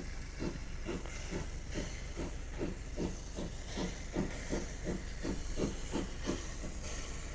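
Small steam tank locomotive approaching under steam, its exhaust chuffing about two to three beats a second over a steady hiss. The beats stop near the end.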